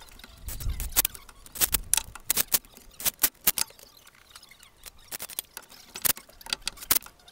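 Irregular sharp metal clinks and taps as a cordless impact tool and its socket are handled and set against the bolts of a CV axle's inner flange, without the tool running.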